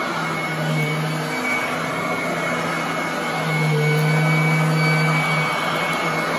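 Royal commercial upright vacuum cleaner running over carpet: a steady rush of air with a high, steady whine from the motor. A low hum fades in and out, and the machine gets a little louder a few seconds in.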